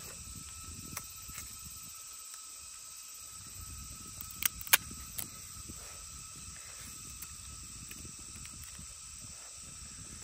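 Crab shell cracking and chewing as a steamed crab is eaten by hand, with a quick cluster of sharp cracks about four and a half seconds in. A steady high buzz of forest insects runs underneath.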